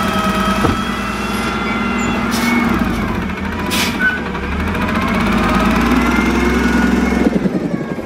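Freightliner M2 garbage truck with a CNG engine and a Labrie Minimax side-loader body, its engine running with a steady hum and a higher whine that wavers in pitch. Two short air hisses come about two and a half and four seconds in, typical of the air brakes. The truck moves off near the end.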